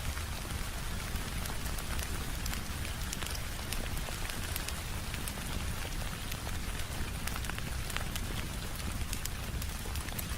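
Steady rain falling, a constant even hiss, mixed with a crackling fireplace whose small sharp pops and clicks come at irregular moments throughout.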